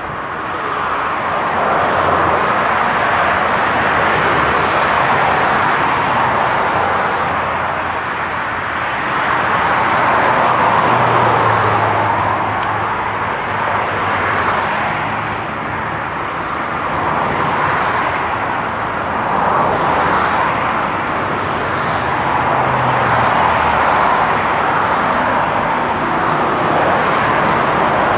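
Jet engines of a Boeing 777-300 airliner running, a steady rushing roar that swells and eases slowly.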